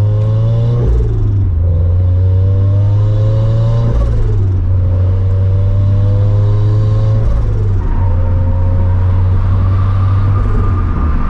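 Turbocharged flat-four of a 2013 Scion FR-S fitted with a Greddy T518Z turbo kit and an aftermarket quad-tip catback exhaust, accelerating through the gears. The engine's pitch climbs in each gear and drops at three upshifts, then runs level near the end, over a heavy exhaust rumble.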